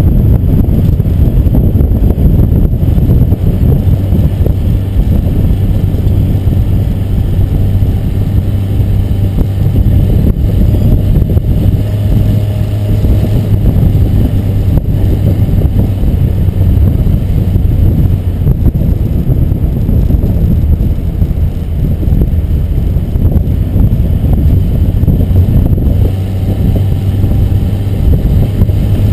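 A vehicle driving, heard from a camera mounted on its rear bike rack: a loud, steady low rumble of road, wind and running gear, with a constant low hum underneath.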